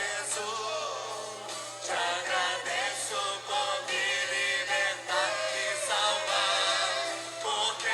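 A church vocal group singing a Portuguese gospel worship song, several voices in harmony, in phrases that break off and start again every second or so.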